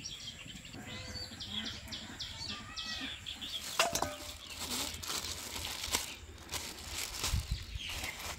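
Small birds chirping in quick repeated calls, with short clinks and scrapes of a metal spoon against steel dishes.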